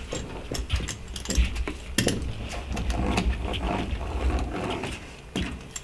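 Small hand roller pressed back and forth over aluminium-foil-backed sound deadening mat on a steel car floor pan: an irregular run of clicks, scraping and foil crinkling as the mat is pressed down.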